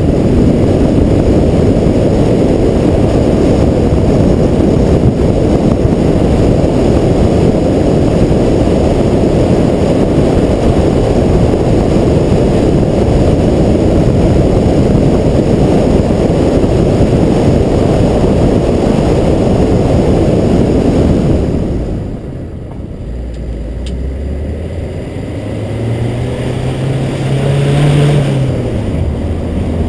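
Car driving on a rough mountain road: a steady low rumble of engine and road noise. About two-thirds of the way through it quietens, then near the end the engine note rises as the car accelerates before the rumble comes back.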